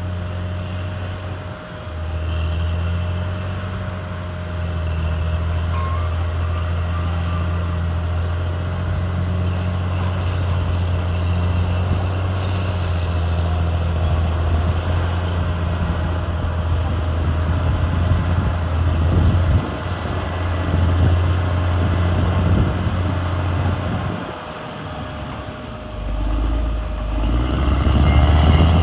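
Caterpillar D6R bulldozer's diesel engine running steadily under load as a low, even drone. The drone dips briefly a few times, most deeply in the second half.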